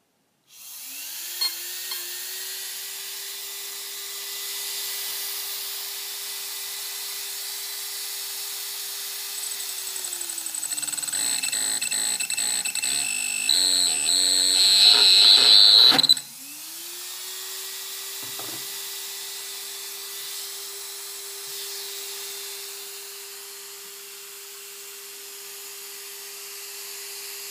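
Turnigy Track Star 120 A sensored ESC and brushless motor powered up: a steady whine rises in pitch about half a second in and holds. From about ten seconds in, a jumble of stepping electronic whines with a shrill high tone grows louder for about six seconds, then cuts off suddenly, and the steady whine climbs back and holds. The ESC is one that the owner reports gets hot and does not work.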